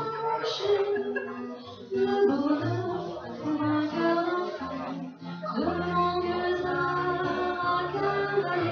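A woman singing a Breton dance tune to acoustic guitar accompaniment, in long held notes over a stepping bass line.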